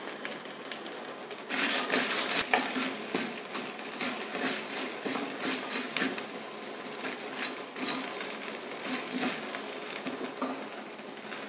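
Metal ladle stirring and scraping dals, coriander seeds and dried red chillies around an aluminium kadai as they roast in a little oil. The stirring starts about a second and a half in, is loudest at first, then goes on as irregular clinks and scrapes.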